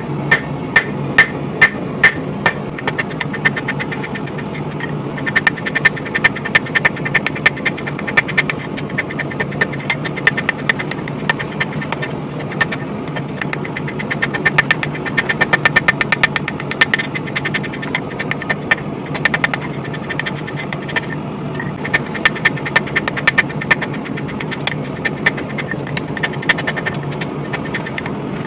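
Rapid hammer blows on hot spring steel at the anvil, forging the bevels into a sword blade, coming in quick runs of several strikes a second with short pauses, each blow ringing. A steady hum runs underneath.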